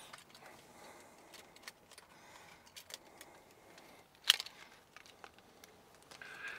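Faint jingling of keys and small handling clicks in a truck cab, with one sharp click about four seconds in; no engine is running.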